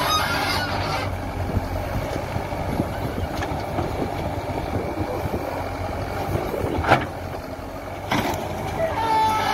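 Backhoe loader's diesel engine running under digging load. A short, high, wavering whine comes just after the start and again near the end, and a sharp knock sounds about seven seconds in.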